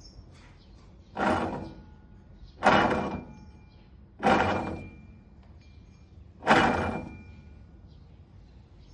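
A badly worn hub bearing turned by hand four times. Each turn makes a loud rough grinding rush with a faint metallic ring that fades out over most of a second.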